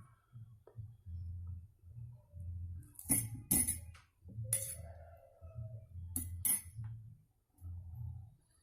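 Glass clinking as lime quarters are squeezed by hand into a glass: a few sharp chinks in the middle, one followed by a brief ringing tone.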